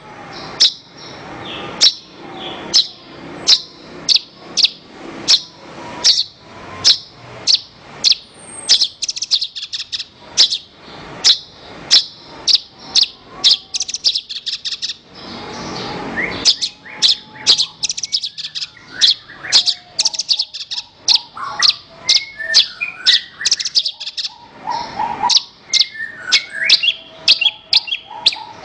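Javan bush lark (branjangan) singing: a long run of sharp, high, down-slurred notes, about two a second, with quicker twittering phrases in between.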